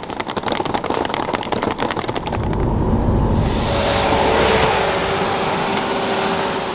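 A fast, even rattle of clicks for about two seconds, then the low rumble and steady hum of a car.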